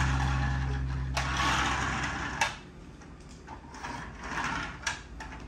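Plastic toy police cruiser rolling and rattling as it is pushed along a hardwood floor, with a sharp knock about two and a half seconds in and a few lighter clicks from the toy being handled. A low steady hum fades out over the first two seconds.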